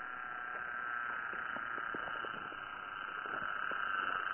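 Small model-airplane engine running steadily on the ground, a high buzz that grows louder near the end, with a few faint light knocks.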